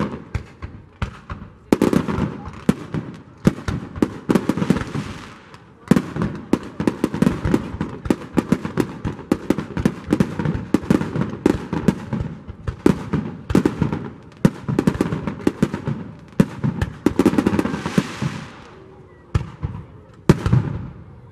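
Fireworks display: aerial shells bursting in quick succession, a dense barrage of sharp bangs with crackling hiss between them. The volley is heaviest in the middle and thins out near the end.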